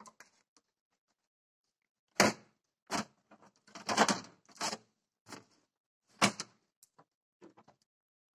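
Hand tin snips cutting thin sheet steel: a series of short metallic snips, about six, beginning about two seconds in. The metal is stiff and cuts with effort.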